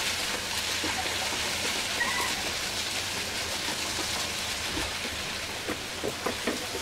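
Diced potato and aubergine sizzling in hot oil in a frying pan as a spatula turns them over: a steady hiss, with a few light spatula scrapes and clicks near the end.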